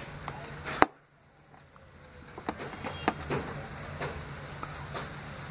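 Small clicks and taps from handling wires and a soldering iron while tinning wire terminals, over a steady low hum. There is one sharp click about a second in, after which the sound briefly drops away before the taps resume.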